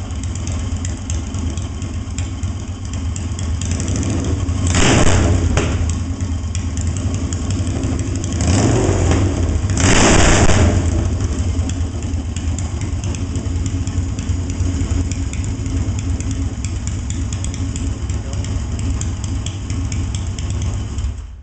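Yamaha XS650 parallel-twin engine, rephased to a 277-degree crank, running steadily through a set of Yo Mama exhaust pipes. It is blipped up with the throttle three times: about five seconds in, and twice more close together around nine and ten seconds.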